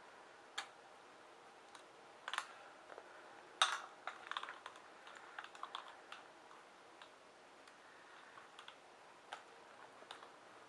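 Scattered light clicks and taps at irregular intervals, the loudest a little before the middle and many small ones bunched together about four to six seconds in.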